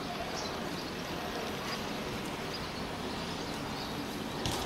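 Airliner on landing approach, its jet engines heard as a steady, even rumble and rush. A short tick comes near the end.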